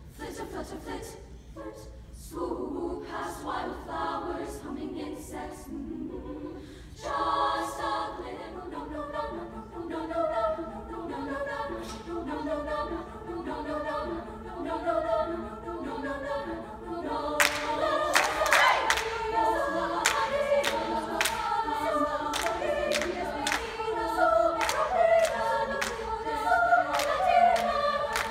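Women's choir singing unaccompanied in several parts, the voices filling out about seven seconds in. Sharp hand claps keep a steady beat, louder and fuller from about halfway on.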